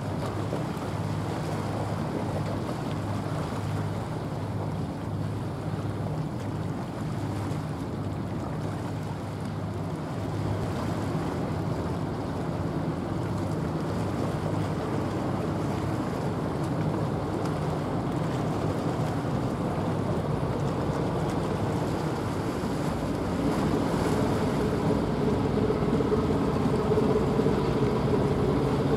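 General cargo ship's engine droning steadily as it passes, a low hum with a haze of wind and water noise, getting louder and fuller over the last few seconds.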